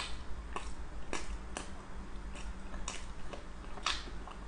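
Close-up chewing of a mouthful of black-coated ice cream bar: sharp crunchy clicks, irregularly about every half second.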